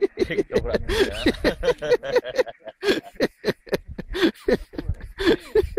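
People talking in quick, clipped syllables, the voices rising and falling in pitch.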